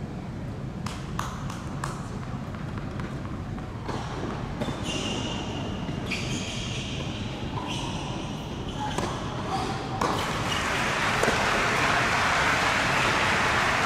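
Tennis on an indoor hard court: a few sharp racket-on-ball and bounce knocks about a second in, then shoes squealing on the hard court in short high squeaks. About ten seconds in, a louder, even rushing noise sets in and keeps going.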